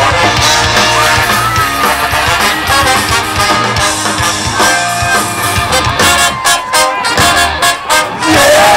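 Ska-punk band playing live, its horn section of trumpets, trombone and saxophone out front over electric guitar, bass and drums, in a passage without vocals. Choppy stop-start hits come near the end, followed by a loud held note.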